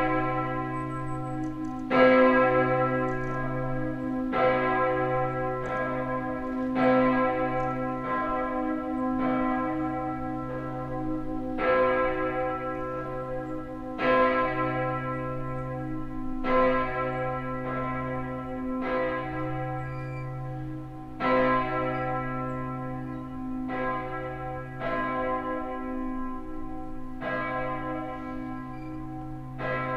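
A single large church bell, the abbey's c′-tuned, 2,100 kg bell 'St. Benedikt' cast in 1950 by Karl Hamm, is being swung and rung. Its clapper strikes at a slow, even rhythm, and each stroke rings on into the next over a deep hum. This is the Friday ringing at 3 pm for the hour of Jesus's death.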